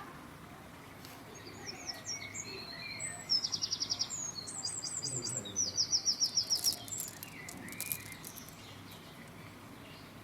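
Small birds chirping, with two quick trills of rapid, evenly repeated high notes, one about a third of the way in and one just past the middle.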